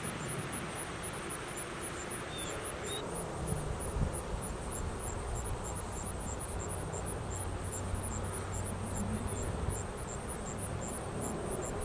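Steady outdoor background noise with a low drone, a faint high ticking about three or four times a second, and a single soft thump about four seconds in.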